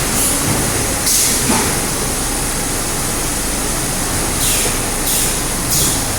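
Automatic carton packing machine running steadily, with short high hisses of air, one about a second in and three close together near the end, typical of pneumatic cylinders venting as the machine cycles.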